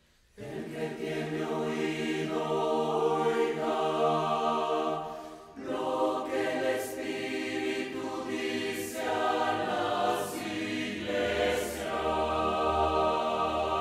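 Mixed choir of women's and men's voices singing sustained chords. The singing enters about half a second in, pauses briefly for a breath around the middle, and a deeper low part joins near the end.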